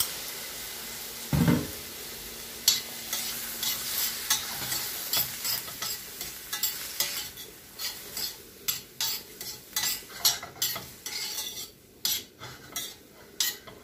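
Mushrooms and onions sizzling in butter in a stainless steel frying pan while a spoon stirs them, scraping and clicking against the pan many times. The sizzle is strongest in the first couple of seconds, with a dull thump about a second and a half in.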